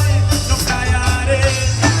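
Live band music with a strong bass and drum beat and a sung voice: a worship song played by a rock band.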